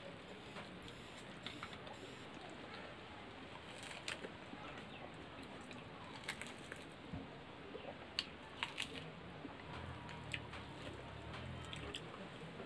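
Faint eating sounds from people eating instant noodles and samosas by hand: chewing and mouth noises with scattered short clicks, over a steady low hiss.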